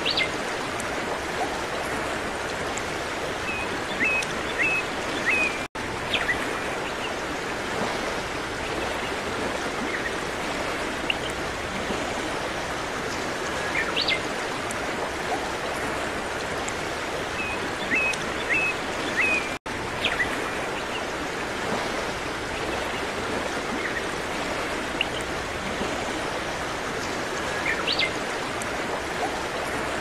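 Steady running-water noise of a stream with a few short bird chirps and quick upward whistles, the same stretch repeating about every 14 seconds as a looped nature-sound track, with two very brief dropouts.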